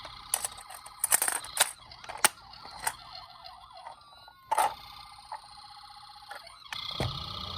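Electronic siren sounds from toy ambulances and police cars: steady tones, then a fast up-and-down warble a few seconds in, amid many sharp plastic clicks and clacks. Near the end a low rumble starts under a new steady siren tone.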